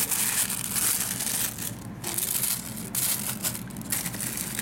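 Tissue paper and a clear plastic bag crinkling and rustling as hands pull back the wrapping around new sandals in a shoebox, in uneven stretches with short pauses.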